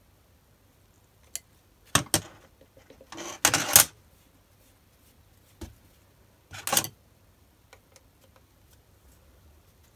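Metal clicks and short clatters from a BS-0 dividing head and a hex key being handled while the worm gear's play is adjusted. The loudest is a rattle of about half a second in the middle, with single sharp clicks before and after it.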